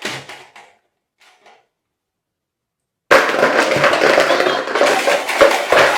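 Plastic markers clattering as a hand rummages through a container of them. The clatter breaks off suddenly for about two seconds of dead silence, then comes back loud and busy.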